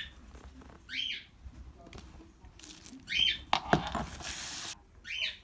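A pet cockatiel giving short, loud whistled calls, three times, about every two seconds; the owner takes the calling as complaint at being ignored. About three and a half seconds in, a louder burst of crinkling from plastic bubble-wrap packaging being handled lasts about a second.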